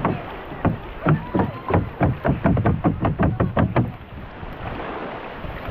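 About a dozen quick thumps with some splashing, speeding up over about three seconds and then stopping. A fisherman is shaking a hand net of anchovies out into a small outrigger boat.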